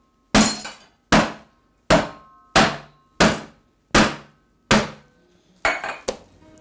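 Bottom of a metal pan pounding fallow deer leg steaks flat through cling film on a chopping board: about nine heavy, evenly spaced blows, a little more than one a second, each with a short metallic ring from the pan. The last two blows come close together near the end.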